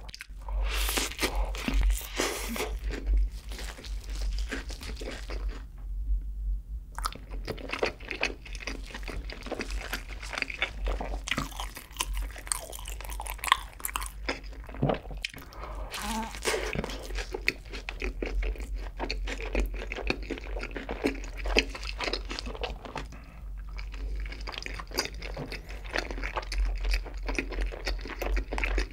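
Close-miked biting and chewing of a cheese-sauce-dipped double cheeseburger: crunchy bites and moist chewing sounds, with a short pause about six seconds in.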